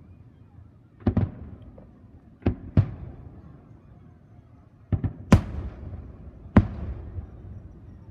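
Aerial firework shells bursting: about seven sharp booms, some in quick pairs or clusters, each trailing off in a short rolling echo.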